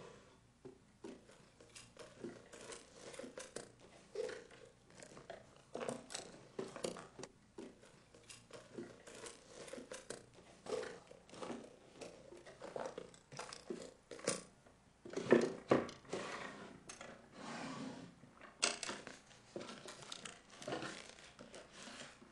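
Someone rummaging through a bedside-table drawer: irregular small clicks, knocks and rustles of objects being moved about, with a few louder knocks about fifteen seconds in.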